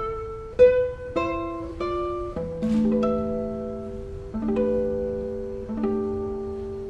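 Classical guitar playing a slow line of single plucked notes, each left to ring: a quick even run at first, then longer held notes.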